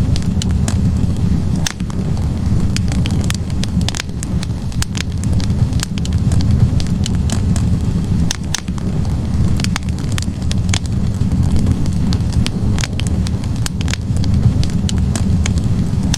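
Wood logs burning in a fireplace: frequent irregular crackles and sharp pops over a steady low rumble of the flames.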